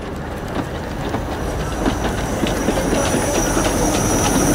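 Narrow-gauge steam goods train passing close by: the wagons' wheels click steadily over the rail joints, growing louder as the steam locomotive draws level, with a high steady sound joining about a third of the way in.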